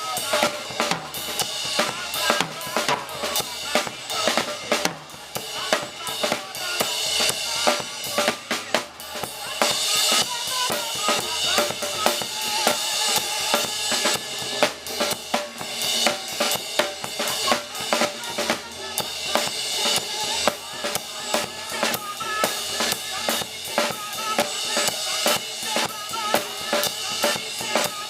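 Live church band music driven by a drum kit playing a steady beat, with bass drum, snare and rimshots over other instruments.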